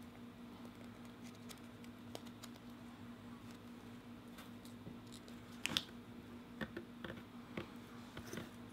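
Light clicks and taps of small plastic model-kit parts being handled and pressed together, the sharpest a quick double click a little before six seconds in, over a steady low hum.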